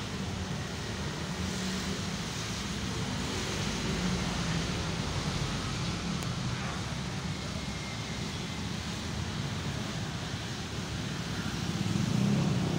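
Steady road-traffic rumble and street noise, with no single event standing out.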